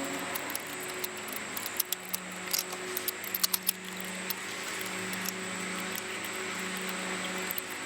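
Metal tools clinking and clicking irregularly as a ratchet, extension and socket work the old spark plugs out of the engine, with a cluster of sharp clinks about two to four seconds in. A steady low hum runs underneath.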